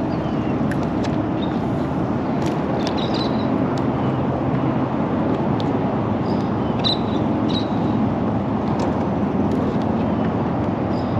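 Steady low engine drone, like a boat motor running, with a few faint ticks and short high chirps over it.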